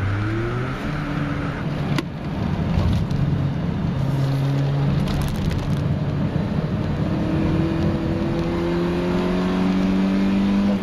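A Mk1 VW Golf's 1.8-litre fuel-injected four-cylinder engine under load, heard from inside the cabin over tyre and wind noise. The revs climb quickly at the start, there is a sharp click about two seconds in, and then the engine pulls steadily higher in pitch toward the end.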